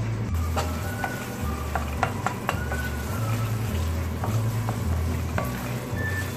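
Wooden spatula stirring and scraping a thick, sizzling masala gravy in a steel pan, with scattered light knocks of the spatula against the pan.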